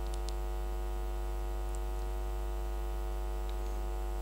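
Steady low electrical mains hum from the sound system, unchanging throughout, with a couple of faint ticks.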